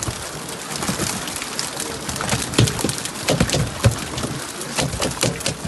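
Freshly landed fish flapping in a heap in the bottom of a boat: an irregular patter of wet slaps and ticks, with a few louder knocks.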